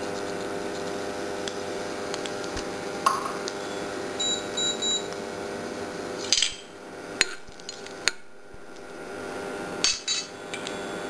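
Steady electrical hum from an induction cooktop heating an aluminium kadai. Three faint short high beeps come about four seconds in. A few sharp metallic clicks and knocks fall between about six and ten seconds in.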